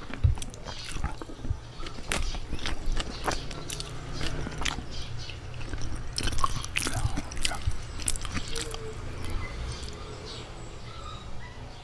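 A person chewing and biting food close to a microphone: wet mouth sounds with many small clicks and crackles, over a faint steady low hum.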